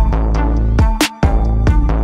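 Electronic background music with a steady drum-machine beat over a deep bass, cutting out for a moment about a second in.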